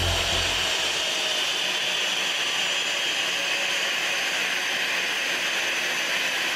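Jet engine running with a steady, high hissing whine; a low musical beat fades out under it about a second in.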